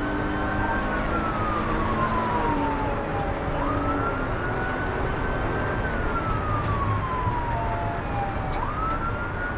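Police car siren on wail: the tone rises quickly, holds high, then slides slowly down, twice over, under a steady rush of road and engine noise from the moving patrol car.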